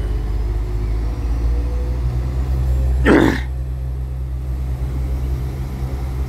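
Two NI Railways Class 4000 diesel multiple units pulling out of a station together, their diesel engines giving a steady low rumble. About three seconds in comes a short, loud hiss-like burst.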